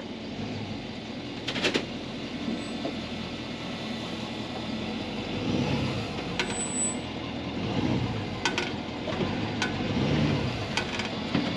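Flatbed truck loaded with hay reversing slowly, its engine running steadily. A few sharp clicks sound over it, one near two seconds in and several more near the end.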